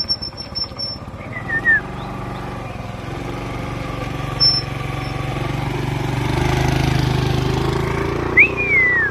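A motor vehicle's engine hums steadily, growing louder to a peak about seven seconds in as it passes. Short high falling chirps or whistles sound about a second and a half in and again near the end.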